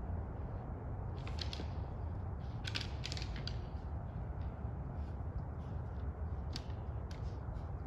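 Antlers of two bucks clacking together as they fight: a short rattle of clicks about a second in, another about three seconds in, then single clacks later. A steady low rumble runs underneath.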